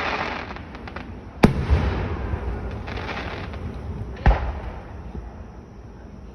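Aerial fireworks going off: two loud bangs about three seconds apart, each trailing off in an echoing rumble, with fainter crackles between.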